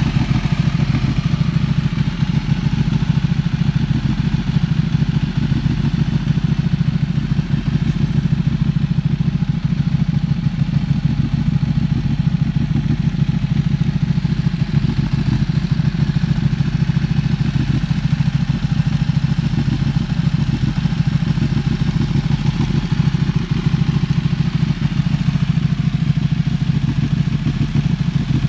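Ducati 1299 Panigale's L-twin engine idling steadily through an aftermarket Arrow exhaust, without revving.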